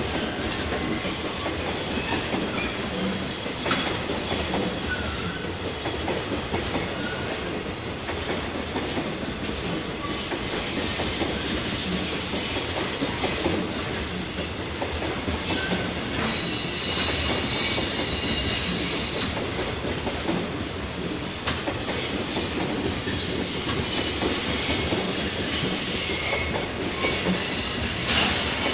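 Container wagons of a long freight train rolling past on the rails, with brief high wheel squeals now and then. It is a little louder near the end.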